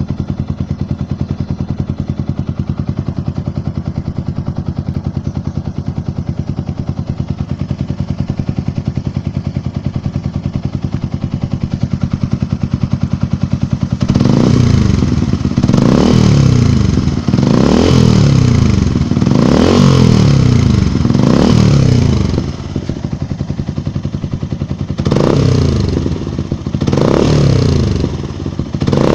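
Yamaha R15 single-cylinder four-stroke motorcycle engine idling steadily, then from about halfway on revved in about eight quick throttle blips, each rising and falling back to idle.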